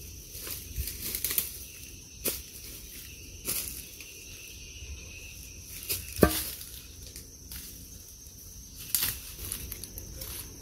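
Scattered crackles and rustles of dry leaves, twigs and brush as a person moves about at the foot of a tree and starts climbing its trunk, with one sharp snap about six seconds in. A steady high insect drone sounds underneath.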